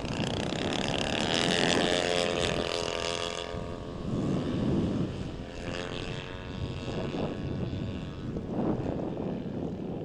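Radio-controlled MXS aerobatic model airplane flying past, its engine and propeller giving a buzzing note. The note swells, bends slightly in pitch and fades, loudest around the first few seconds and again about six seconds in.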